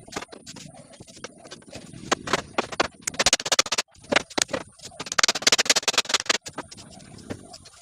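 Rapid sharp tapping and clicking of work on wood, in two dense runs about three and five seconds in, with scattered single knocks between.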